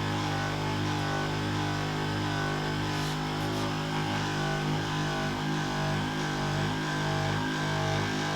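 Electric handheld massager running with a steady motor hum as it is worked over the muscles of the outer leg and hip.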